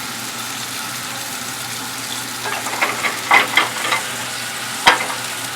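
Food sizzling steadily in a hot pan, with a short run of clattering from cookware or utensils about halfway through and a single sharp knock near the end.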